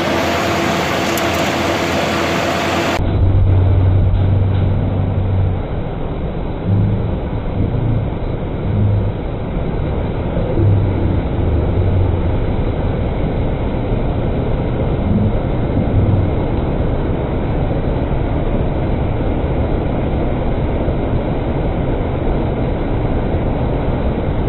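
Steady rushing of air and engines inside an airliner's cockpit at cruise, with irregular low bumps. About three seconds in, the sound turns abruptly duller.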